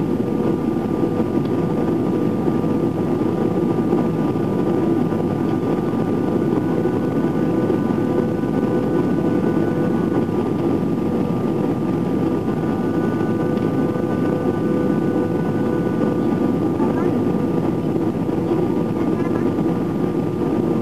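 Steady cabin noise inside an Airbus A320 in flight: the drone of the engines and rushing airflow, with a few faint steady tones above it.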